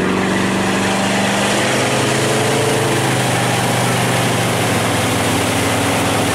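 Tow boat's engine running steadily under way, its note shifting slightly about halfway through, over an even rush of wind and churning water.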